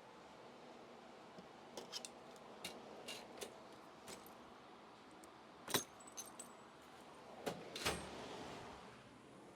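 Hand tools and small metal parts clinking and tapping during engine-bay work: scattered light metallic clicks, with two louder knocks about six and eight seconds in.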